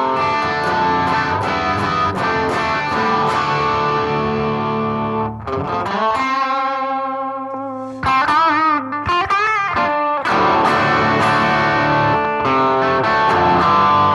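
Gibson Les Paul Studio with humbucker pickups played through a BOSS GT-1000 amp modeller on a stereo crunch patch. Ringing overdriven chords give way, about six seconds in, to a single-note lead line with vibrato. Chords return about four seconds later.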